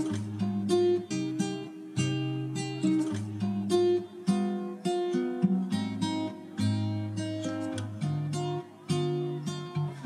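Instrumental background music: a steady run of plucked notes and chords.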